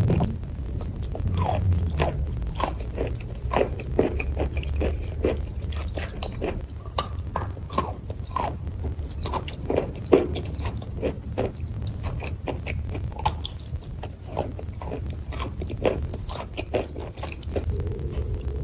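A person biting and chewing a white food close to the microphone, with many quick, irregular crunches.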